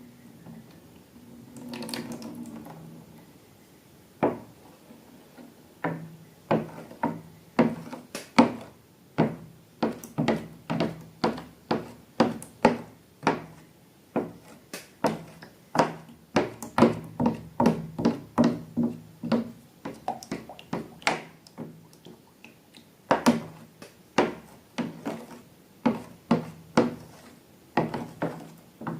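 Slime being worked and stirred in a container: a rapid run of wet clicks and taps, about two a second, after a soft rustle near the start.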